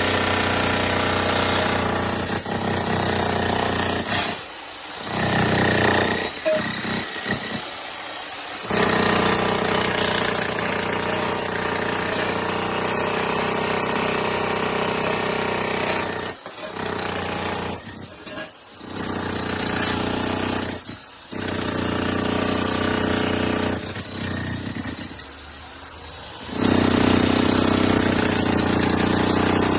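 Loud, steady machine noise that drops away sharply several times, around the fourth, sixteenth to twenty-first and twenty-fifth seconds, and comes back each time.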